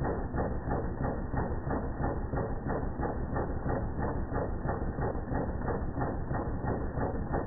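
Philips DP70 film projector running, its mechanism making a steady rhythmic clatter of about four strokes a second. The sound is slowed down and low in pitch, as in a 240 fps slow-motion recording.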